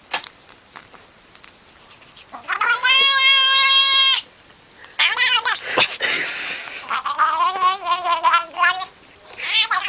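A cat yowling: a long, steady, drawn-out call after a couple of seconds of quiet, then a shorter call and a run of wavering, warbling calls near the end.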